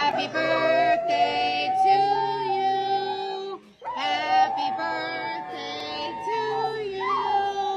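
Large grey pit bull-type dog howling: two long drawn-out howls, broken by a short pause about three and a half seconds in.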